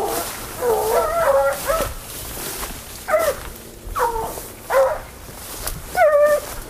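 A pack of hunting dogs baying on the trail of wild boar: drawn-out calls that waver in pitch, a cluster of them in the first two seconds, then single calls about a second apart.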